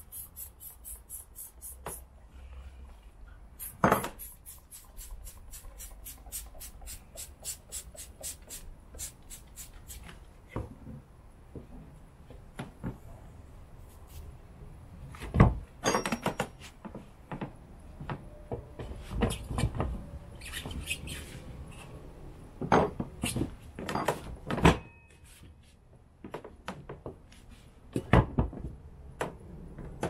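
Tyre levers knocking and clattering against the cast alloy rear wheel rim of a Yamaha TDM 850 as a motorcycle tyre is levered off and a new one fitted by hand. There are scattered sharp knocks, and runs of fast clicking in the first third.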